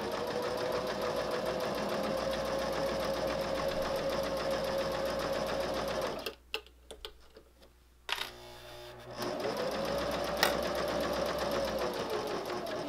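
Electric sewing machine stitching a seam at a steady speed, stopping about six seconds in. After a pause of about two seconds it starts again, speeds up, and slows to a stop near the end.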